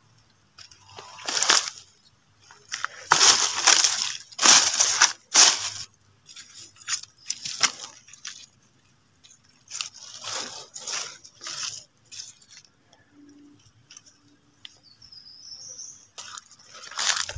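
Footsteps crunching through dry fallen leaves and low plants on a forest floor, in uneven bursts with short pauses between them.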